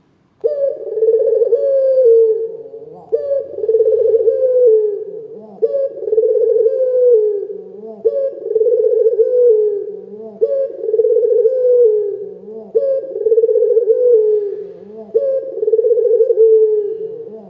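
Barbary dove (Indonesian 'puter lokal') cooing with a big voice, repeating the same rolling coo phrase about every two and a half seconds, seven times, starting about half a second in.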